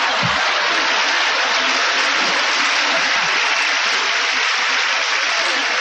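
Large audience applauding, a dense, steady clapping that keeps an even level throughout.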